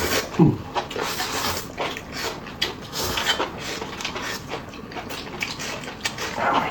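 Close-miked chewing and wet mouth smacks of people eating noodles and meat: a steady run of short, sharp clicks.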